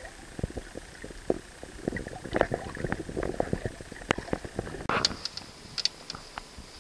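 Muffled underwater sound picked up by a submerged camera: low gurgling rumble with many irregular clicks and knocks, and one louder knock about five seconds in.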